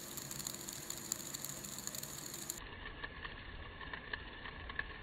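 Two stacked fidget spinners spinning in opposite directions: a steady bearing whir with scattered light ticks and rattles.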